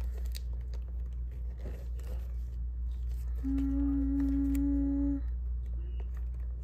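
Light rustling as sticker sheets are handled, with one steady hummed note held for about two seconds in the middle. A low steady hum runs underneath.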